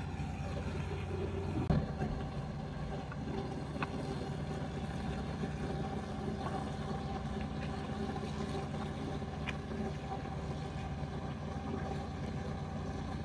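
A steady low mechanical hum made of several constant tones, with a few faint clicks from the cardboard box and foil-wrapped cheese portions being handled.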